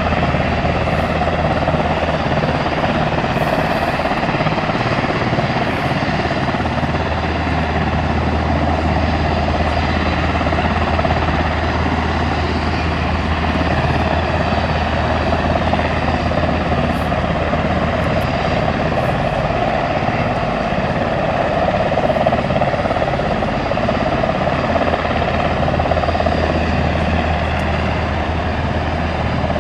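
Two UH-60 Black Hawk helicopters running on the ground, their twin turboshaft engines and main rotors turning at a steady pace before take-off.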